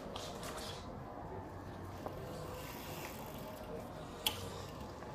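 Quiet outdoor background with the soft movement sounds of a karate kata performed on foam mats, a small click about two seconds in, and one sharp snap about four seconds in that is the loudest thing heard.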